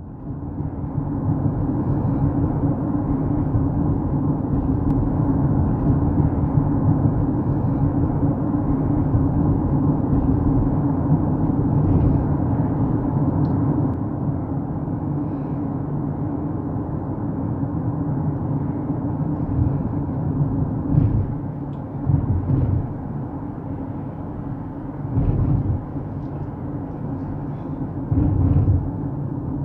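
Steady low road rumble heard from inside a moving car on wet pavement, with four heavier low thumps in the last third.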